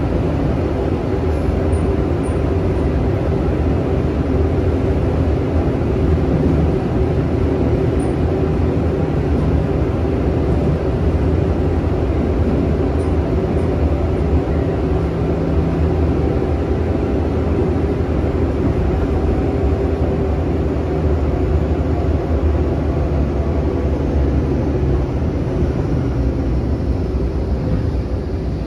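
Steady running noise of a Seoul Subway Line 3 electric train, heard from inside the passenger car as it travels at speed on an above-ground section: a continuous low rumble of wheels on rail. A faint falling whine comes in near the end.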